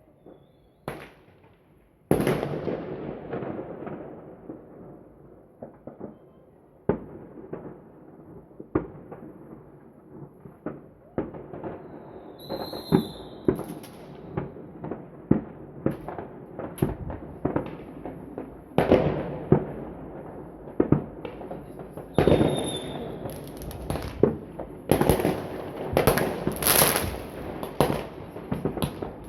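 Consumer fireworks going off: one big bang about two seconds in with a long rolling tail, then scattered sharp bangs and cracks that come thicker and faster through the second half.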